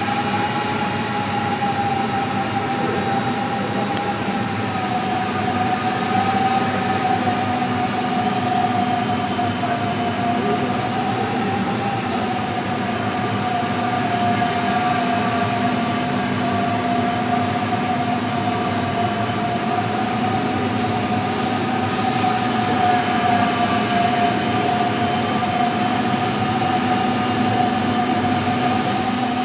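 Motors of a scratch-built radio-controlled VC-10 model airliner in flight, giving a steady high whine that wavers slightly in pitch.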